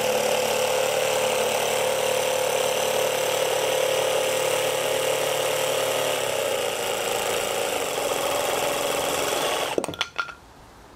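Makita DJV180 18V cordless top-handle jigsaw cutting through a board in orbital mode, running flat out. About six seconds in its pitch drops a little as the trigger is eased off near the end of the cut. It stops shortly before the end, followed by a few clicks.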